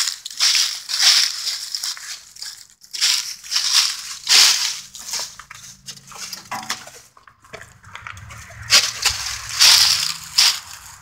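Footsteps crunching through dry fallen leaves, an uneven series of crisp crunches about one to two a second. A faint low hum lies underneath in the second half.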